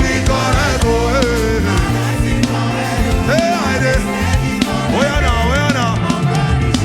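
Afro gospel music: a singer's voice gliding through a melody over a full band with a steady bass.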